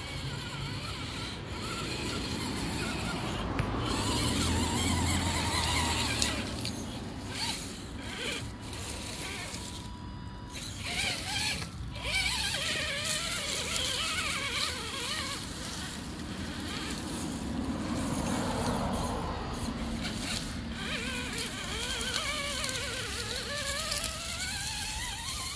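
Small electric motors and geartrains of radio-controlled scale crawler trucks whining, the pitch rising and falling as the throttle changes.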